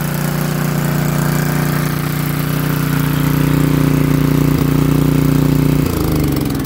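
Tecumseh small engine of a portable generator running steadily, then shut off about six seconds in, its pitch falling as it winds down.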